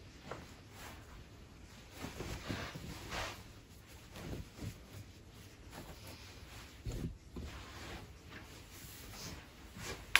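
Faint rustling of a cloth towel rubbed over bare feet and then folded, with a soft low thump about seven seconds in and a sharp click near the end.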